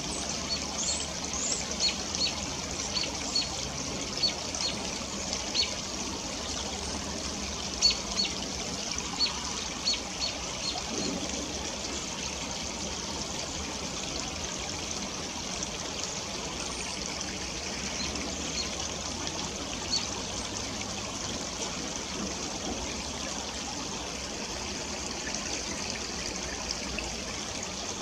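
Shallow stream trickling steadily over rocks, with a scatter of short, high, sharp notes through roughly the first eleven seconds, fewer after.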